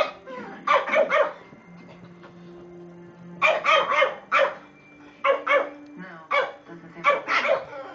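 Shih Tzu barking in play: sharp, high barks in quick runs of two to four, the runs coming a second or two apart.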